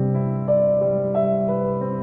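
Background piano music with long held notes, a new note coming in every half second or so.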